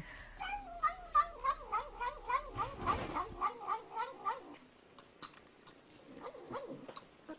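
A cat making a rapid run of short, wavering yowling calls, about three a second, with a sharp click about three seconds in. Around the middle the calls give way to fainter, lower cat sounds.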